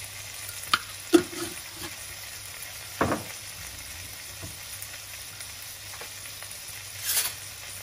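Radish and lemongrass with seasonings frying in a pan, a steady sizzle. A few sharp clicks of wooden chopsticks against the pan cut through it, the loudest about a second in and another about three seconds in.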